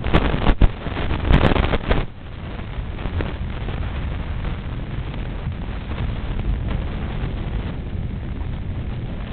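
Wind buffeting the camera's microphone, a steady low rumble. It is louder and rougher for the first two seconds, with a few sharp clicks.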